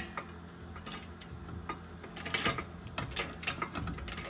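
Hydraulic floor jack being pumped, with irregular clicks and clacks from the handle strokes as it lifts the truck's lower control arm to seat the upper ball joint in the steering knuckle.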